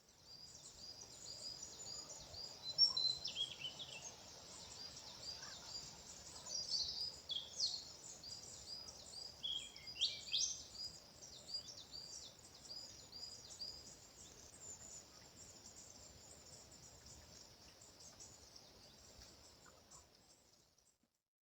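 Birdsong: several birds singing, with rapid series of short, high repeated chirps and a few louder falling notes about 3, 7 and 10 seconds in. Fades out near the end.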